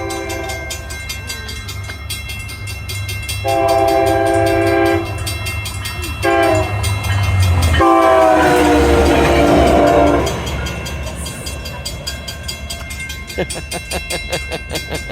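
A mechanical railroad-crossing bell rings continuously with rapid, even strikes while a passing train sounds its horn in the long, long, short, long crossing pattern, the last blast the loudest and dropping slightly in pitch as the train goes by. The train's rumble runs underneath.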